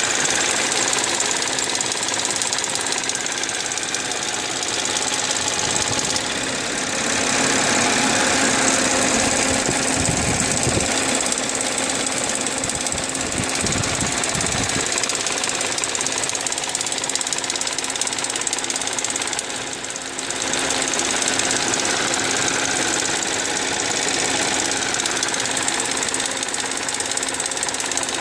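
Audi 3.0 TFSI supercharged V6 running just after a cold start, with an extraneous noise that swells and fades in waves. The noise seems to come from the left rear of the engine and appears only while the engine is cold.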